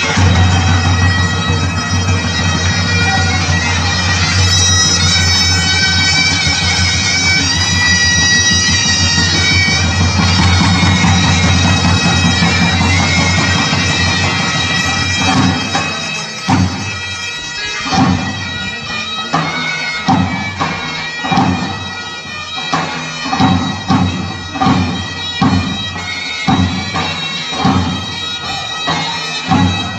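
Bagpipe music: a steady drone with a melody over it, and from about halfway a regular beat comes in.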